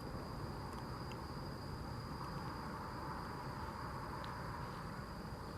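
Woodland insects, such as crickets, giving one steady high-pitched drone over a faint, even hiss.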